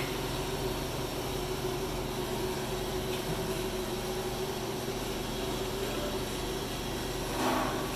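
Steady mechanical hum of a FIRST LC-185VS vertical milling machine running, its 3 hp spindle motor and drive giving a constant tone over an even noise. A brief louder sound cuts in near the end.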